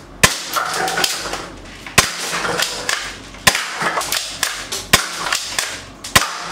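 Plastic toy airsoft shotgun firing 6mm BBs: five sharp cracks, about one every second and a half, with lighter clicks and rattles in between.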